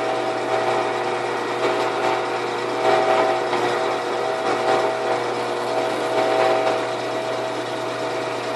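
Drill press motor running steadily while its bit bores into a piece of reciprocating saw blade steel, the cutting sound swelling a few times as pressure comes on. The bit is making slow progress because the steel is still hard: it needs holding cherry red longer to anneal.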